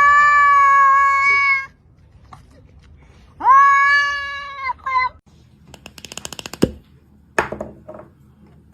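A domestic cat giving two long, drawn-out meows a couple of seconds apart, the second trailing off into a short broken cry. After them come a quick run of clicks and two sharp clicks.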